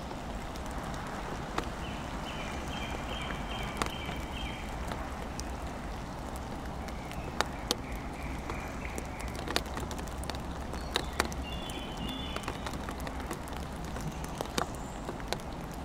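Steady rain, with irregular sharp knocks of heavier drops hitting a wooden play tunnel.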